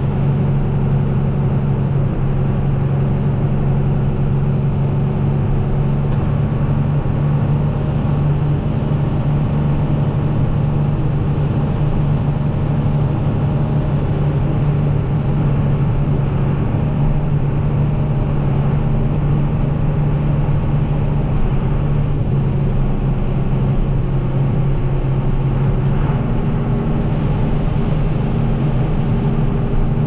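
Tractor engine pulling a grain cart, running at a steady speed as a continuous low hum. Its sound brightens slightly about three seconds before the end.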